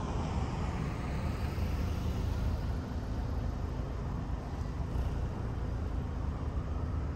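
Road traffic: a steady low rumble of tyres and engines, with a car driving past close by.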